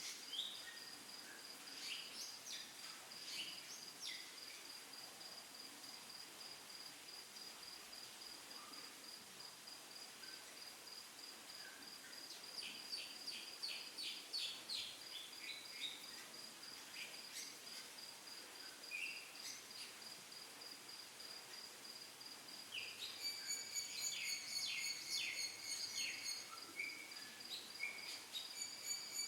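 Insects chirping in a steady, high pulsing trill, with scattered bird chirps and short trills over it; a second, lower pulsing chirp joins near the end.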